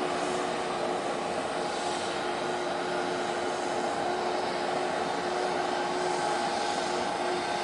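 Steady drone of a large ship's machinery, with a constant hum over the rumble.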